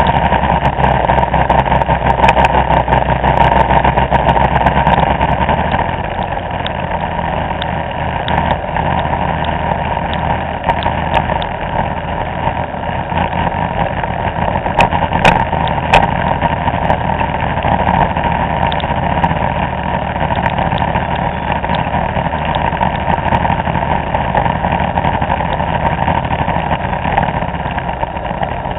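Vespa scooter engine running at riding speed, with steady road and engine noise. A strong low rumble eases about six seconds in, and a few sharp clicks come about halfway through.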